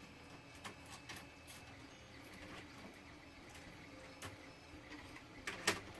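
Scattered light clicks and taps of small tools and objects being handled and set down while rummaging for tweezers, a few sharp ticks spread through, the loudest pair near the end.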